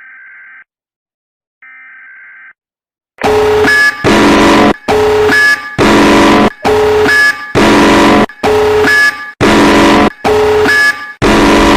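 Emergency Alert System alarm: two short, quieter data-burst tones, then from about three seconds in a loud alarm blaring in pulses about a second long, some nine times.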